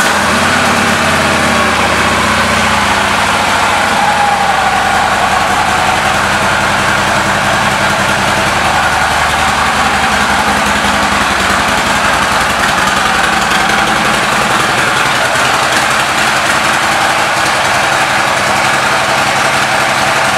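Harley-Davidson Ultra Limited's V-twin engine with water-cooled heads, idling steadily just after starting.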